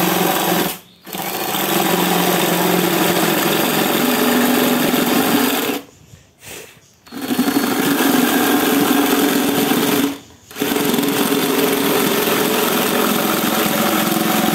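Cordless drill driving a reciprocating-saw (jigsaw) adapter, its blade sawing a curve through a hard, dry mahogany board. The saw runs steadily, stopping briefly about a second in, for about a second around six seconds with a short burst in between, and again briefly around ten seconds.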